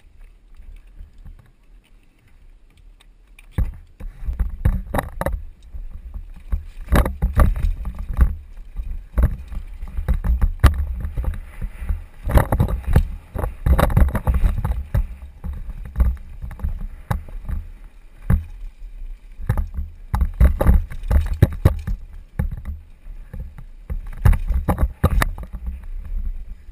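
Downhill mountain bike descending a rocky dirt track, heard from a helmet-mounted camera: a heavy low rumble with frequent sharp knocks and rattles as the bike hits rocks. It is fairly quiet at first, then picks up about three and a half seconds in.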